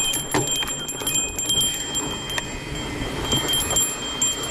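Mountain bike descending a rough dirt trail. A high ringing tone from the bike comes and goes, over tyre noise and quick rattling clicks from the bumps.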